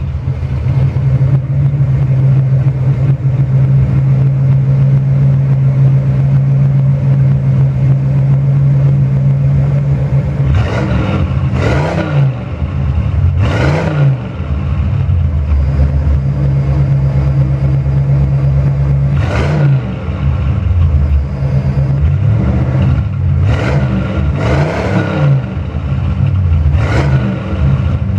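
1978 Lincoln Continental Mark V's 460 cubic-inch V8 running through Thrush exhausts. It idles steadily just after starting, then from about ten seconds in it is revved hard in a string of quick blips, each rising and falling in pitch.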